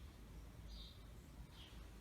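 Near silence: a faint steady low hum, likely the Aliseu Special Inspire ceiling fan running quietly, with two short high chirps from a bird.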